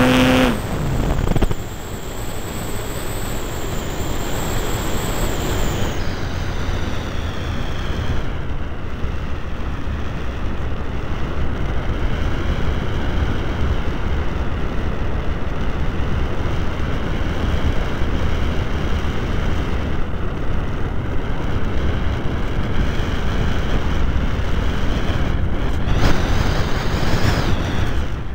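Radio-controlled model airplane in flight, heard from its onboard camera: steady wind rush on the microphone with the motor's whine over it, the pitch dipping and rising with the throttle and climbing sharply near the end.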